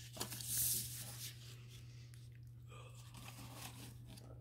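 Brief rustle of paper and card being handled, about a second in, with fainter handling noise after it over a steady low electrical hum.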